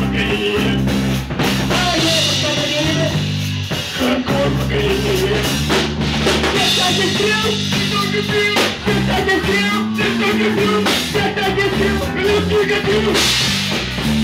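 Loud rock music with a steady drum kit beat, guitar and a singing voice.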